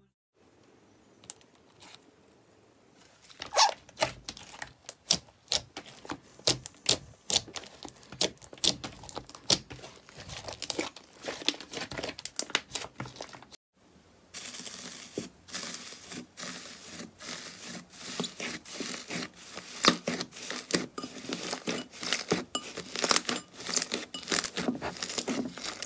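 Hands pressing and squishing slime, with trapped air popping out in quick, crackling clicks. It is quiet for the first few seconds; after a brief gap about halfway through, the crackling comes thicker.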